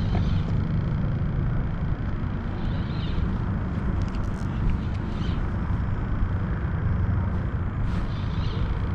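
Steady low rumble of wind buffeting the microphone out on the water, with a few faint ticks scattered through it.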